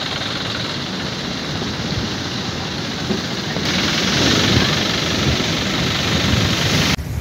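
Police SUV's engine running close by as it drives slowly, under a steady rushing noise; the sound gets louder and hissier about four seconds in.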